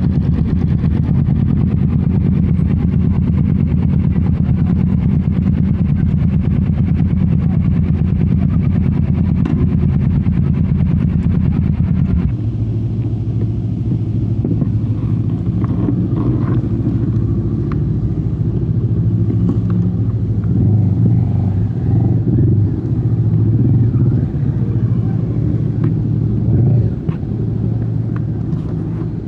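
Royal Enfield Meteor 350's single-cylinder engine and exhaust running steadily. About twelve seconds in, the sound changes abruptly to a lower, more uneven engine note.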